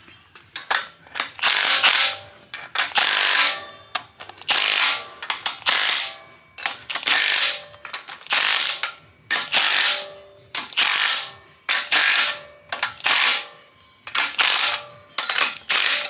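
Ratchet wrench working bolts down, with repeated bursts of rapid ratchet clicking roughly once a second.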